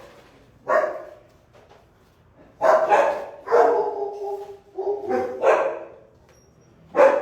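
Dogs barking in shelter kennels: a string of about six loud barks with short gaps, a couple of them drawn out.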